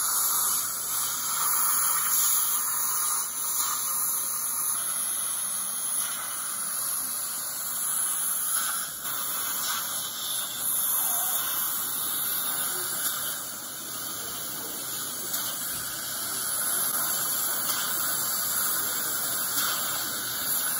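Dental handpiece and suction running together: a steady high-pitched hiss while the tooth surfaces between the teeth of a prepared molar are polished smooth.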